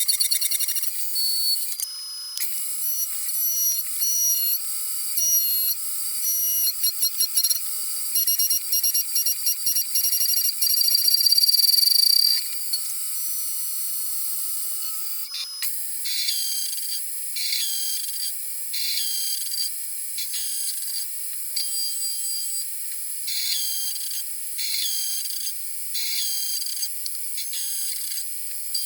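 Background music of high, beeping synth-like tones in a repeating rhythmic pattern, with no bass.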